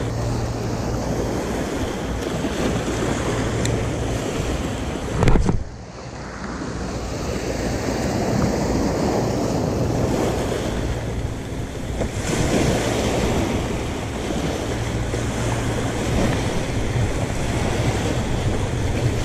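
Sea waves breaking and washing over a rocky, pebbly shore, with wind buffeting the microphone. A brief loud knock about five seconds in, after which the sound dips for a moment.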